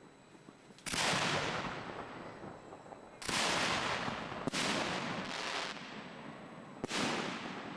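Fireworks firing from the launch site: four loud bangs a second or two apart, plus a weaker one between the third and fourth. Each bang trails off in a fading hiss.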